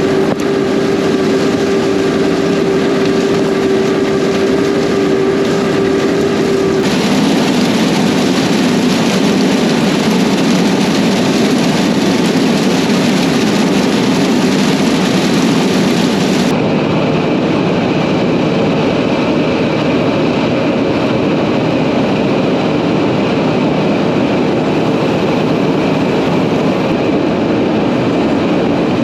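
CP690 cotton picker running steadily under load, a loud continuous machine drone. A steady hum drops out about seven seconds in, and the sound shifts abruptly again a little past halfway.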